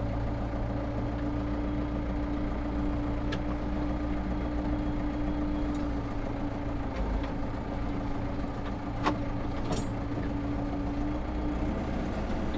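Landini Powerfarm 95 tractor's diesel engine running steadily as the tractor drives forward, heard from inside the cab, with a few light clicks.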